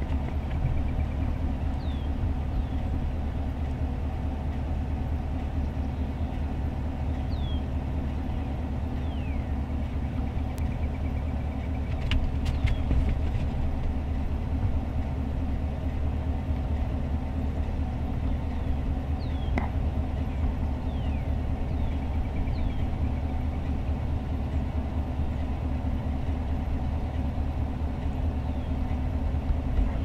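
Vehicle engine idling steadily with a low, even hum. Faint, short, falling bird chirps come now and then, with a couple of small clicks.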